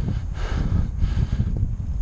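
Heavy, laboured breathing of a man exerting himself on a steep uphill, a rasping breath about every half second, over a steady low rumble of wind buffeting a small action-camera microphone.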